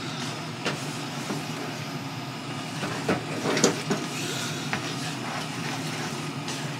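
Pasta being stirred and tossed in a nonstick frying pan over a gas burner: a steady hiss under scattered light clicks and scrapes of chopsticks and a wooden spatula against the pan, the sharpest about three seconds in.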